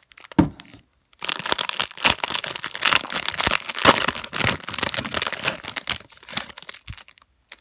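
Plastic wrapper of a trading-card value pack crackling and rustling as the sealed card packs are pulled out of it by hand, with a short knock about half a second in.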